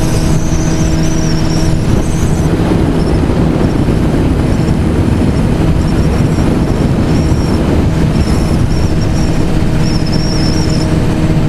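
Honda CBR1000RR inline-four engine running steadily at highway cruising speed, with heavy wind rush over the microphone.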